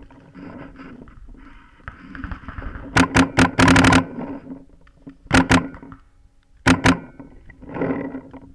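Paintball marker firing right at the camera mounted on its barrel: a quick string of about five or six sharp pops about three seconds in, then two quick pairs of shots a second or so apart.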